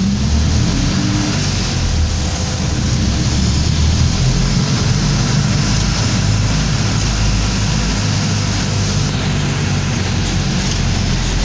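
Engine rumble and road noise heard from inside a moving jeepney's open cabin, a steady low drone that doesn't let up.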